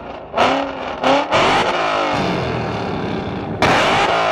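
Ford Mustang's engine revved in quick sharp blips, a few in the first second and a half, then a longer loud rev near the end, with its exhaust shooting flames.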